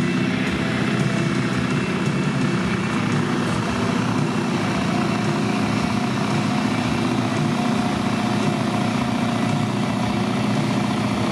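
Scania 142H truck's V8 diesel running flat out under full load as it drags a truck-pulling weight sled, its engine note holding steady and even throughout.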